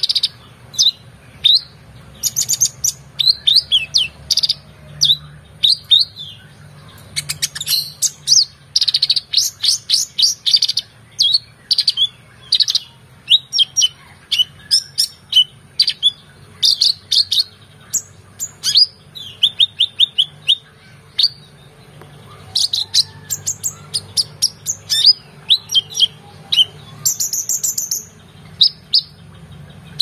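Male kolibri ninja (purple-throated sunbird) singing excitedly and without pause: fast runs of high, thin chirps, sweeping notes and rattling trills in varied phrases that carry mimicked calls of other birds. A faint low hum sits underneath.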